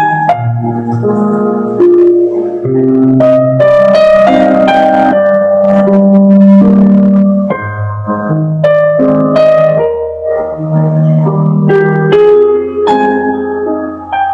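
Instrumental intro music: a tune of short notes over a changing bass line.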